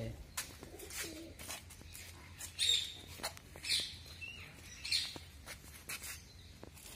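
A bird calling: a few short, high chirps about a second apart in the middle, with one brief gliding note among them.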